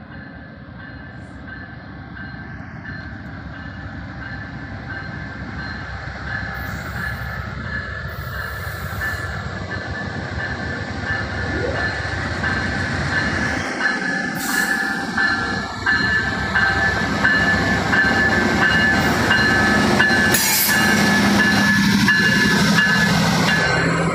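Amtrak Empire Builder passenger train, led by GE Genesis diesel locomotives, approaching and drawing alongside. The locomotives' engines and the rolling wheels grow steadily louder, with a steady high tone over the rumble and a deeper engine hum as the lead locomotive comes close near the end.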